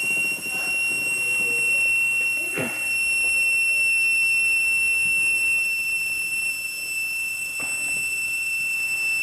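A steady high-pitched electronic whine with fainter overtones over tape hiss, typical of an old camcorder's audio track. A couple of faint knocks come about two and a half seconds in and again near the end.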